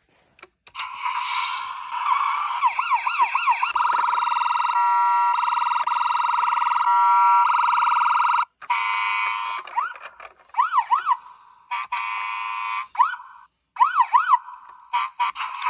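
Road Rippers Mini K9 toy police car's electronic siren sounding from its small built-in speaker. It switches between several siren patterns, quick rising-and-falling whoops and steady or rapidly pulsing tones, cutting off and restarting a few times.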